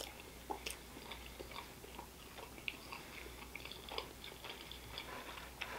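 Faint close-up chewing of a soft mouthful of mac and cheese and rice, with small wet mouth clicks scattered through it.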